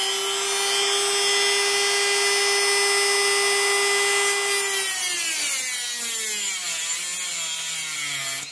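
Small electric power tool motor running with a steady whine, then sliding down in pitch over about three seconds as it slows.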